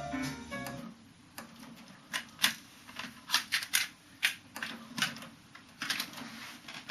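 Music playback from the Akai GX-Z7100EV cassette deck stops about a second in. It is followed by a string of irregular sharp clicks from the deck's transport mechanism and buttons being worked.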